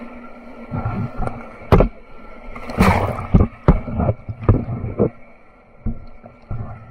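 Rushing whitewater on an artificial slalom channel, breaking over a canoe and its boat-mounted camera. About a second in, a run of sharp splashes and knocks starts as waves slap the boat and lens, about two a second at first and thinning out near the end.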